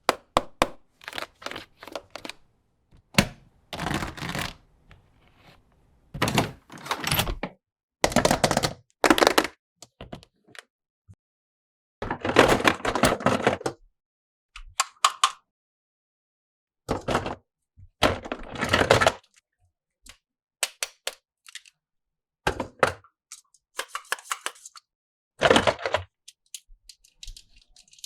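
Toy packaging and plastic toy parts being handled and opened by hand: irregular bursts of crinkling and rustling mixed with sharp plastic clicks and light knocks, separated by short pauses.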